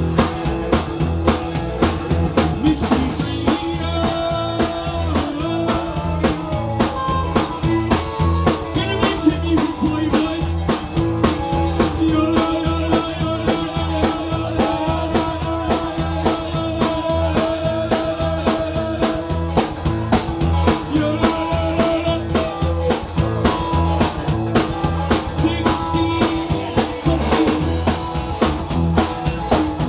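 Live rockabilly band playing: upright double bass, electric guitar and drum kit in a steady driving rhythm, with held guitar notes over the beat.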